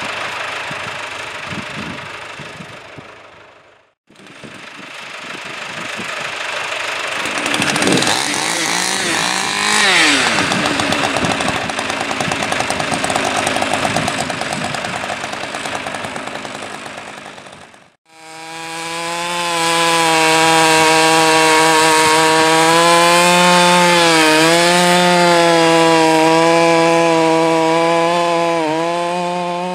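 Husqvarna two-stroke chainsaw with a 28-inch bar bucking logs, running at high revs with its pitch dipping briefly as the chain loads up in the cut. It comes in three stretches, broken by short silences about 4 and 18 seconds in.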